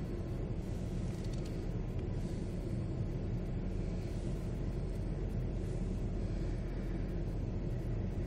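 Steady low rumble inside a moving car's cabin: engine and tyre noise while driving.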